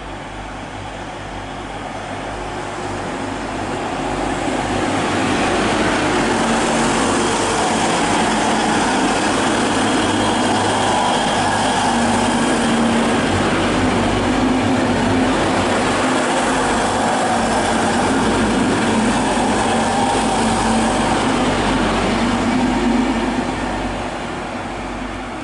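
DB class 612 diesel multiple unit running through a station, its diesel engines and wheels swelling as it comes in and passing close by, then fading near the end.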